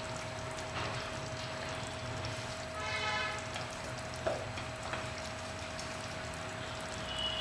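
Chicken curry gravy in a hot steel kadhai softly bubbling and hissing as it settles, the flame just turned off, over a faint steady hum.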